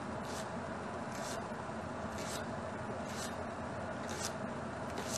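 Kitchen knife slicing a leek into thin strips on a wooden cutting board: a short, soft scraping stroke about once a second, six in all, over a steady low background hum.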